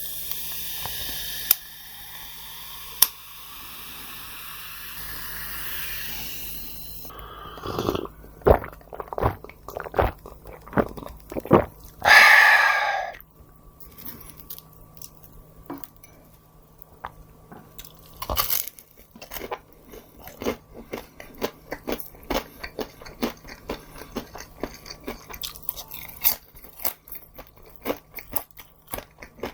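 Close-miked eating: bites and chewing with many small crunches in quick succession. It opens with a steady hiss lasting several seconds, and there is a louder rush of noise about a second long near the middle.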